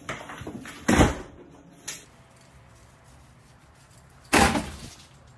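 A cat clawing at a printed sack hung on a wall: rustling, then a loud bang about a second in as it pulls at it. Near the end another single loud bang.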